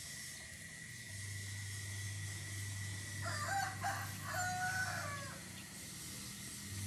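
A rooster crows once, a call of about two and a half seconds starting about three seconds in. It runs in held segments and ends on a falling note.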